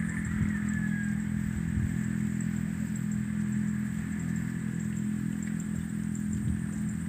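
A small engine running steadily at an even pitch, with wind buffeting the microphone.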